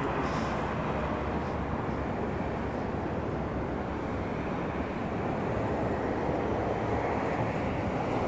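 Steady, even rumble of distant city traffic across the river, with no single vehicle standing out.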